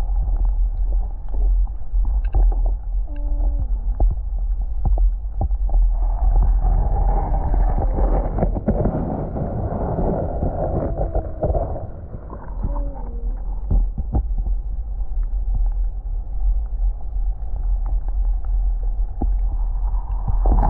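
Wind buffeting the microphone in a loud, steady low rumble while kayaking on a river, with water rushing louder for several seconds in the middle. Short gliding tones come twice, near the start and past the middle.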